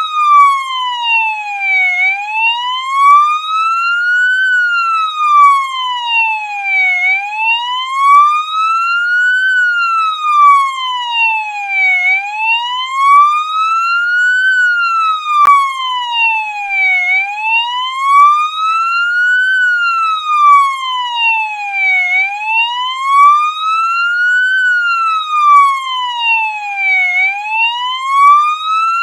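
Police siren sounding a slow wail: the pitch climbs for about two and a half seconds, then falls for about two and a half, repeating evenly about six times, with no traffic or other noise behind it. A faint click is heard about halfway through.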